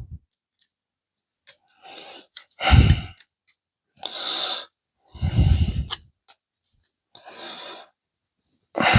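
A person breathing close to the microphone: heavy breaths out alternating with quieter, hissier breaths in, about every second and a half.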